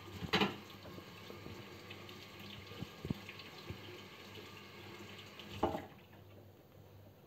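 Kitchen tap running into a stainless-steel sink, shut off about six seconds in. It gets briefly louder about half a second in and again just before it stops.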